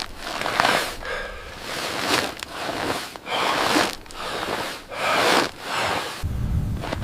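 A person breathing heavily and fast, with a hissy breath about every second. A low rumble comes in near the end.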